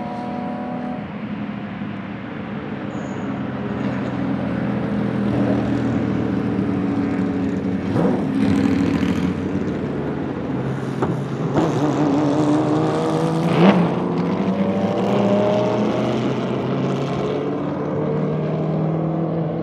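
Matech Ford GT GT1 race car's 5.3-litre V8 driving past at speed. Its pitch rises and drops through gear changes as it nears and passes, with sharp cracks about eight, eleven and fourteen seconds in, the last the loudest. It then pulls away.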